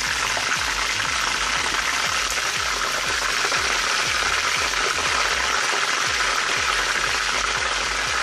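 Hot oil sizzling and crackling steadily around a whole chicken deep-frying in a steel pan.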